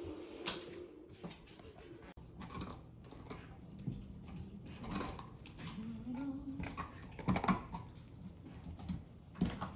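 Dogs gnawing on chews, making irregular clicking and crunching noises.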